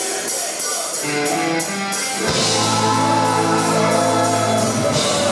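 Live rock band starting a song: sustained electric guitar chords over a steady ticking beat, with the bass coming in a little over two seconds in and filling out the sound.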